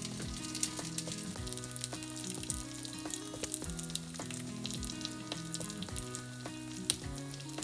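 Gyoza frying in a pan: a steady sizzle with frequent small crackles, over a quiet background tune.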